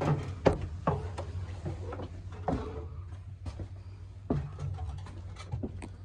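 Footsteps thumping up the folding metal entry steps and across the floor of a travel trailer, a few irregular knocks over a steady low hum.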